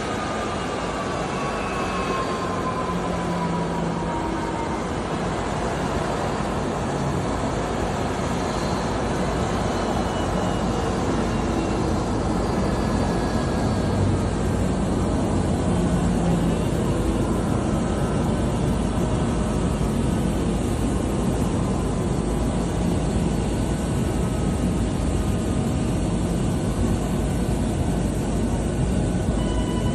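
Jet airliner's engines running at idle close by: a steady roar with faint whining tones that slowly fall in pitch, clearest in the first few seconds.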